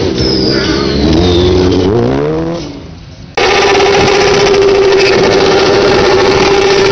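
Motorcycle engine revving, its pitch rising and falling as a stunt bike rides a wheelie past, fading away about three seconds in. After a sudden cut, a sport bike's engine is held at steady high revs during a burnout, the rear tyre spinning on the pavement.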